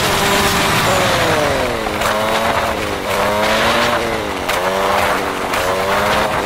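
Motor scooter engine running under the rider, its note falling and rising several times as the throttle changes, over wind and road noise. The footage is fast-forwarded, so the pitch swings come quickly.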